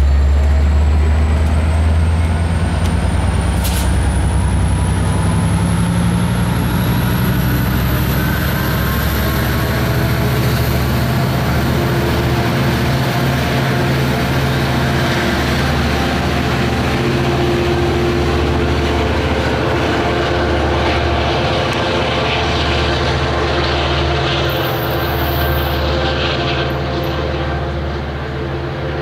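EMD 12-710G3C-EC diesel prime mover of an F59PHI locomotive powering up: a loud, steady diesel engine sound with a high whine climbing steadily in pitch over the first ten seconds or so, easing off a little near the end.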